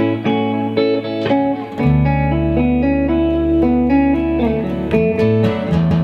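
Electric and acoustic guitars playing an indie-folk instrumental passage of picked notes, with a deep low note held from about two seconds in until near the end.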